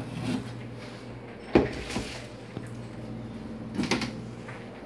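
Items being handled in a pantry cupboard: a few sharp knocks and clatters, the loudest about a second and a half in and another cluster near four seconds.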